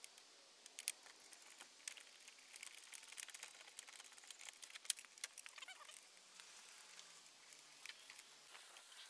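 Faint, scattered small clicks and ticks of a small Allen key prying at a plastic trim piece and its clips as it is worked loose from the car's body panel.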